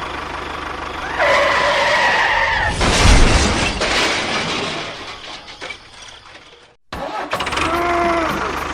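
Vehicle noise with a wavering high tone partway through, then a sudden loud burst about three seconds in that fades away. The sound cuts off abruptly near seven seconds and resumes with another brief bending tone.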